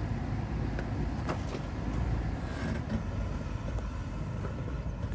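Toyota Land Cruiser's 5.7-litre V8 running low and steady as the SUV crawls over loose rock, with a few light knocks of stone under the tyres.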